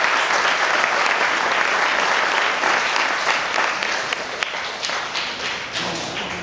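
Audience applause, dense at first and thinning out to scattered claps near the end.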